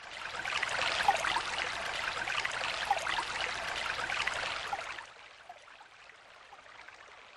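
Running water, like a brook: a steady splashing hiss that drops suddenly about five seconds in, leaving a faint hiss.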